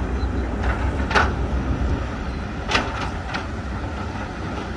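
Heavy diesel machinery engine running steadily with a low rumble, with a few short sharp knocks over it.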